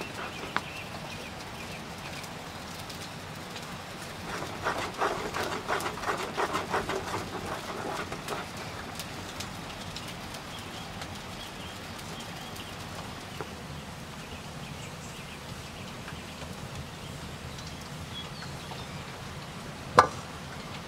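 Thick sauce stirred in a bowl with a wooden spatula, giving a few seconds of quick wet strokes, over the steady crackle of a wood fire. One sharp knock near the end is the loudest sound.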